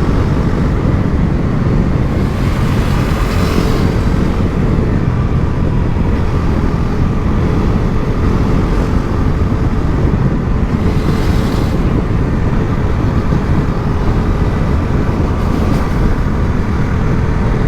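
Bajaj Pulsar NS400Z's single-cylinder engine through its stock exhaust, running steadily while the bike is ridden at an even pace. A rushing noise swells briefly three times.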